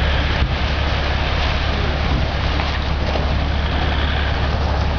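A Toyota Land Cruiser SUV drives slowly over an icy, stony stream bed under a steady, even rush of noise with a strong low rumble.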